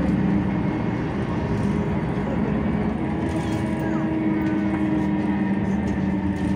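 Ikarus 260 city bus diesel engine running under way, heard from inside the passenger cabin with road and body noise; the engine note shifts about three seconds in.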